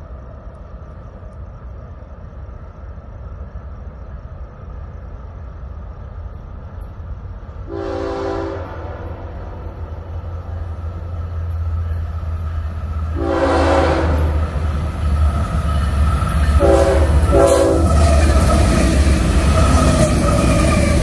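Florida East Coast Railway diesel freight locomotive approaching and passing close by, its engine rumble growing steadily louder. It sounds its horn for a grade crossing in the long-long-short-long pattern. The train rushes past loudly near the end.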